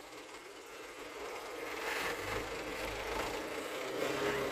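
Loaded dump truck's diesel engine running as the truck drives slowly past, growing louder with a low rumble from about two seconds in.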